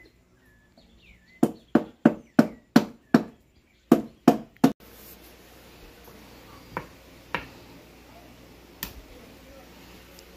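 A quick run of about nine sharp chopping blows, roughly three a second, followed by a few faint knocks.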